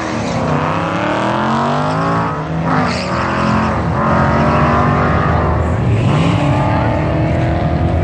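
A turbocharged Mazdaspeed3 (upgraded with a Garrett GT3076R turbo) and a V8 5.0 Mustang accelerating hard side by side down a drag strip. Their engine notes climb and drop back several times as they shift up through the gears.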